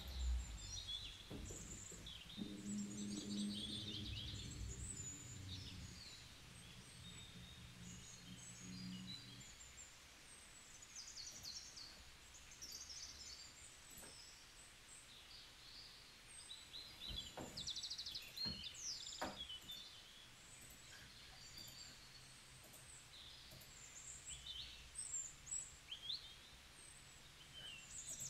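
Faint birdsong, many short high chirps and twitters throughout. A low steady hum comes in about two seconds in and stops near the middle, and there are a few soft clicks.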